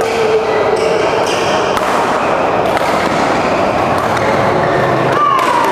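Badminton rally: a few sharp racket hits on the shuttlecock and a short falling shoe squeak on the court mat near the end, over the steady hubbub of a busy sports hall.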